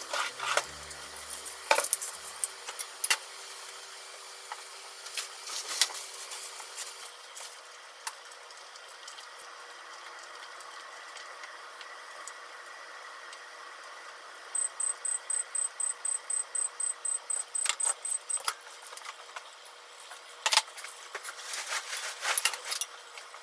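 Kitchen cooking sounds: chopsticks and utensils clicking and clinking against metal bento boxes and pans, over a soft steady hiss. Partway through, a quick run of high-pitched beeps lasts about four seconds.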